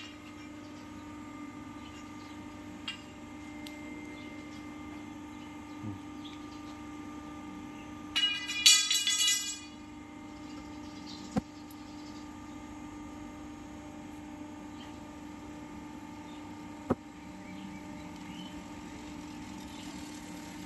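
CNC hydraulic punching machine's pump motor running with a steady hum. A few sharp clicks sound, and about eight seconds in a loud, high screech lasts about a second and a half.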